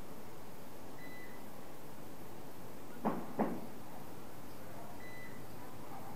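Steady room noise with two quick knocks about a third of a second apart, midway through. A faint short high beep sounds twice, about four seconds apart.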